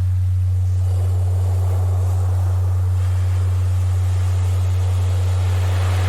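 A loud, steady low electronic tone, a Rife frequency played as a pure sine, held unchanged over recorded sea surf. The surf haze dips at first, swells about a second in and builds again near the end.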